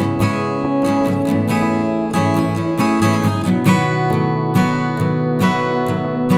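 Background music of strummed acoustic guitar with a steady rhythm.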